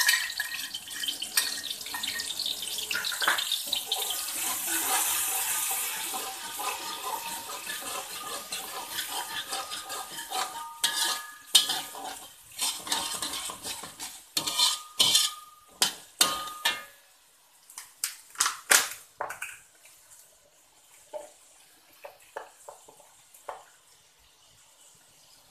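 A wok of frying spices and curry leaves sizzles with a dense hiss as the rendang-powder mixture cooks in the hot oil. From about ten seconds in, a slotted metal spatula scrapes and clacks against the wok as it is stirred, with a few brief metallic rings. Near the end only a few faint scrapes remain.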